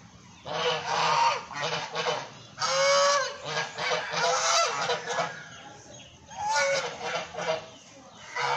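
A small flock of white domestic geese honking in repeated bursts, several calls overlapping, with a short lull about six seconds in.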